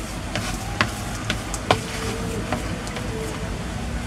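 Spatula stirring and pressing a stiff bait dough in a metal basin, with three sharp knocks of the spatula against the basin in the first two seconds, the last the loudest.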